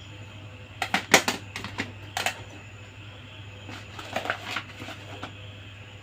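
Small plastic toy pieces clicking and tapping as they are handled: a quick run of clicks about a second in, two more around two seconds, and another cluster around four seconds, over a faint steady hum.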